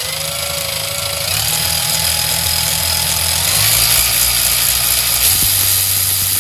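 Makita XRW01Z 18V cordless ratchet running with a socket on its anvil, a steady motor whine that steps up in pitch twice as the variable-speed trigger is squeezed further, going from slow toward faster.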